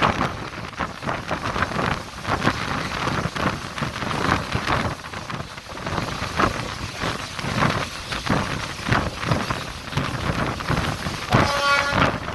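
Electric train on the move: a loud, rough rushing noise with short irregular surges throughout. Near the end the train's horn sounds once for about a second.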